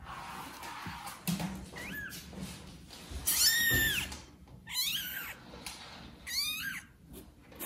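Newborn kittens mewing: about four high cries, each rising then falling in pitch, the longest and loudest about three and a half seconds in. These are young kittens calling for their mother.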